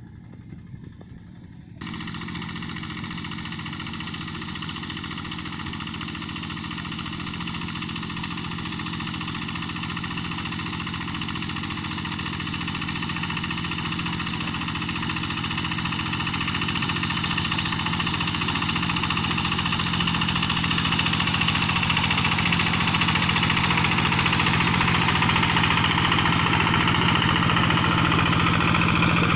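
Two-wheel hand tractor's diesel engine running steadily, growing gradually louder as it comes closer. The sound starts abruptly about two seconds in.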